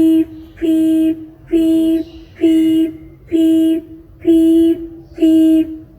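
A person's voice saying "peep" again and again on one steady pitch, about once a second, seven times.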